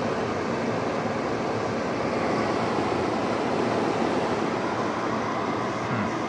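Carrier window air conditioner running, a steady whoosh of fan and moving air with a faint low hum underneath.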